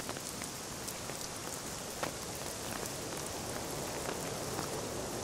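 Steady rain falling, an even hiss with scattered single drops tapping.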